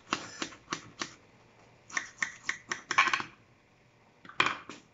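Irregular sharp clicks and taps in three short clusters, with quiet gaps between them.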